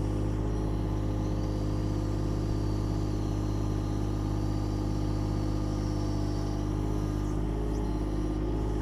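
Takeuchi TB216 mini excavator's diesel engine idling steadily, with no revving or hydraulic load.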